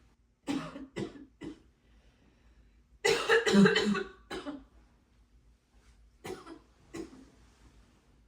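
A person coughing in bursts, put on for a fake-blood prank: three short coughs, then a louder, harsher fit of coughing about three seconds in, and two more coughs near the end.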